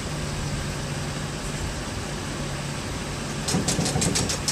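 A pickup truck engine idling steadily. About three and a half seconds in, a fast, even run of metallic clicks starts, the ratchet of a boat trailer's hand winch being cranked to pull the boat up onto the trailer.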